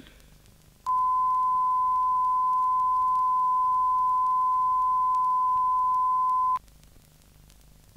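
A steady 1,000 Hz test tone from a calibration tape played on a Sony TC-350 reel-to-reel deck. It starts about a second in and cuts off abruptly after roughly six seconds, with faint tape hiss and low hum in the gaps either side.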